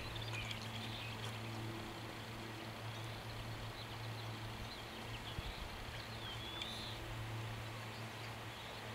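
Birds chirping now and then over a steady low hum.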